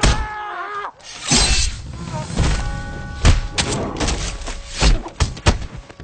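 Dubbed fight sound effects: a short pitched cry about the first second, then a quick run of punch and kick impacts and thuds over a held music chord.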